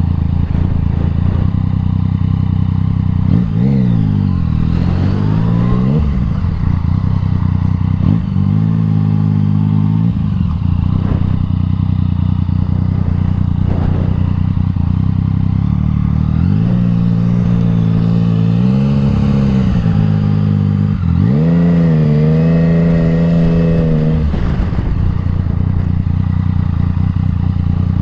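Yamaha MT-09's three-cylinder engine running through an Akrapovič exhaust while riding, with a steady low drone. The engine note rises and falls under throttle about four seconds in, again around eight seconds, and twice more, longer, in the second half.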